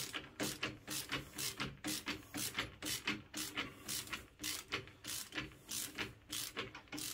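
Ratcheting Phillips screwdriver clicking as a screw is driven by hand, a steady run of short ratchet clicks, two or three a second, on each back-stroke of the wrist.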